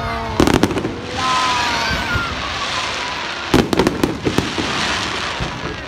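Aerial fireworks display: a cluster of loud bangs about half a second in and another about three and a half seconds in, with a hissing crackle between and after the bursts as the glittering stars fall.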